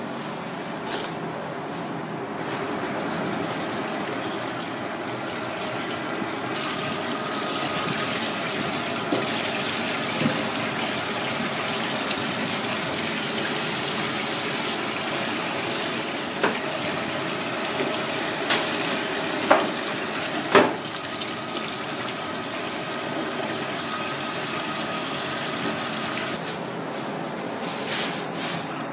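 A steady rush of running water, like a tap, with four sharp clicks about two-thirds of the way through, the last one the loudest.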